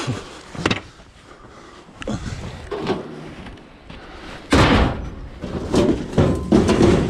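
Rusty metal barbecue frame being loaded into the back of a van, knocking and clanking against the scrap ovens and other metal already inside. There are several knocks, a loud bang a little past halfway, and a cluster of clanks near the end.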